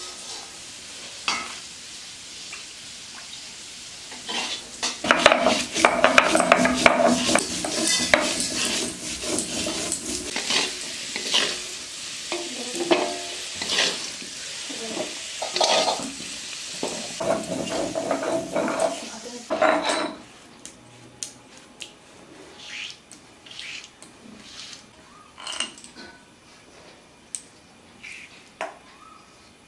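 Food sizzling in hot oil in a pan while it is stirred, with scrapes and clinks against the pan. The sizzling cuts off suddenly about two-thirds of the way through, leaving a few scattered clicks.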